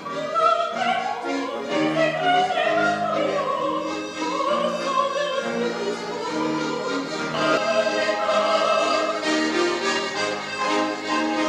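A soprano singing a melody in classical operatic style, accompanied by accordion and piano.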